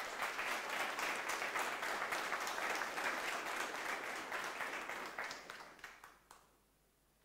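Audience applauding: many people clapping, thinning out and stopping about six seconds in.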